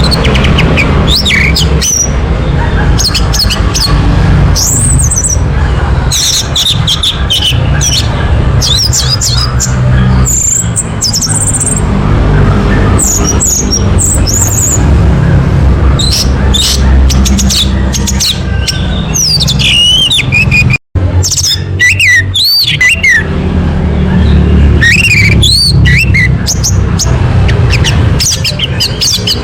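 Orange-headed thrush song: a rapid, continuous run of varied whistled phrases and pitch glides over a steady low hum, cutting out for an instant about two-thirds of the way through.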